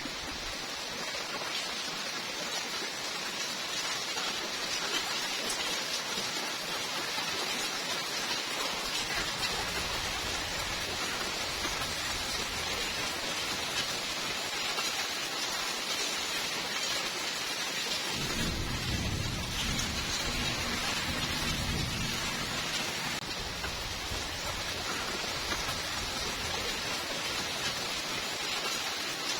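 Steady rainfall with an even hiss, with thunder rumbling low underneath: a faint roll about a third of the way in and a stronger one lasting several seconds about two-thirds of the way through.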